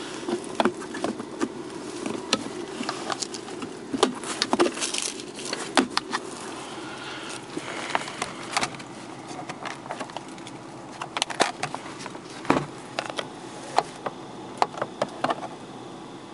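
A steady low buzzing hum in a small car's cabin, with scattered plastic clicks and knocks from interior controls being handled: the handbrake lever worked at the start and the overhead sunglasses holder near the end.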